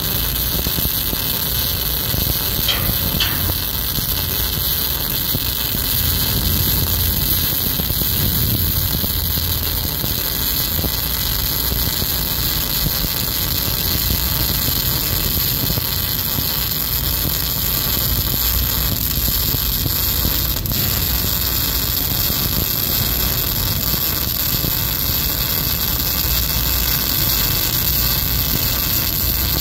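Electric arc welding: the welding arc burns steadily, without a break, as a bead is run along a seam.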